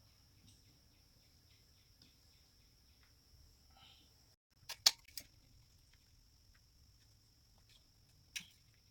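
Faint room noise with a thin, steady high-pitched whine, broken about five seconds in by a quick cluster of three or four sharp clicks or taps, and one more click near the end.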